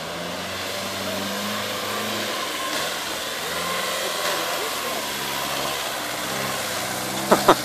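Nissan Terrano II's engine pulling under load as the off-roader drives out of a river and climbs a grassy bank, its note rising and falling as the revs change.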